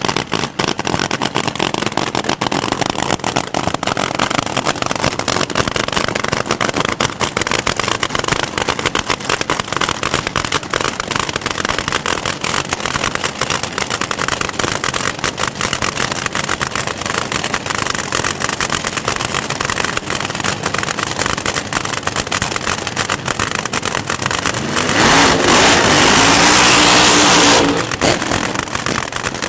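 Top Fuel dragster's supercharged nitro-burning engine idling with a rapid, uneven crackle. About 25 seconds in it is run up to full throttle for a burnout, loud and rising in pitch for nearly three seconds. It then cuts off sharply and drops back to idle.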